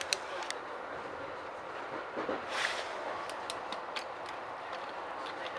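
Steady running noise inside a Metra Rock Island commuter train car, with a few light clicks and a short hiss a little before halfway.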